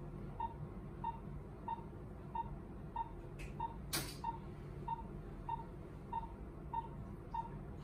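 Patient monitor's pulse-oximeter beep sounding with each heartbeat, steady in pitch, about one and a half beeps a second (a pulse near 90 a minute). A single sharp click about four seconds in.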